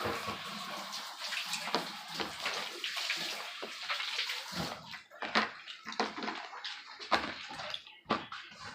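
Wet squishing and squelching of homemade slime being mixed by hand, with liquid being worked into it; irregular, with several sharper squelches in the second half.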